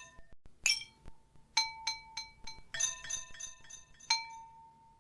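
Household kitchenware (glass, ceramic and metal, such as a fork on pyrex, a mug and a spoon on a butter knife) struck as a percussion backing track. The strikes are sharp, ringing clinks in a rhythmic pattern, with a quick run of hits about three seconds in.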